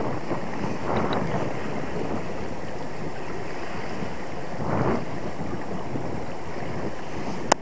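Wind noise on the microphone over sea water washing against shore rocks, swelling about a second in and again near five seconds. A single sharp click comes near the end.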